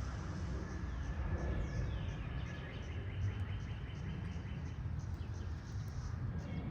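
Chorus of periodical cicadas droning steadily, with a constant low rumble underneath.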